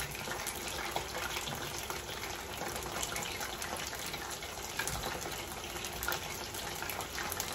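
Tempura-battered chicken pieces deep-frying in oil at 375 °F in a cast iron skillet: steady sizzling and bubbling with fine crackles.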